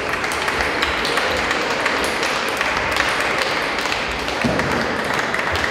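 Steady hall hubbub dotted with many scattered clicks of table tennis balls hitting bats and tables, from several tables in play at once.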